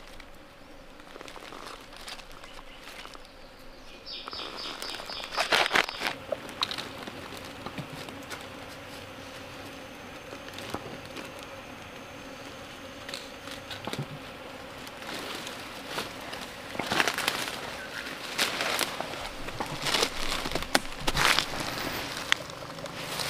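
Dry leaves and twigs rustling, with light clicks, as hands work a wire snare on the forest floor; insects buzz steadily in the background.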